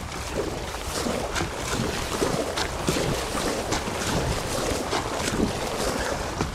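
Kayak paddle blades dipping and pulling through flat water in steady forward strokes, giving repeated splashes, with water washing along the hull and wind buffeting the microphone.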